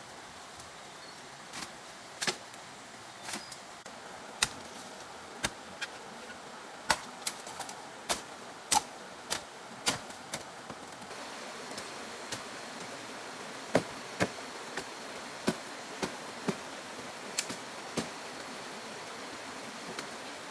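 A string of sharp, irregular knocks or cracks, roughly one a second, over a steady hiss.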